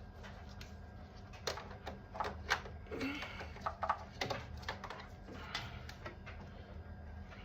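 Irregular light clicks and knocks of objects being handled, over a steady low hum.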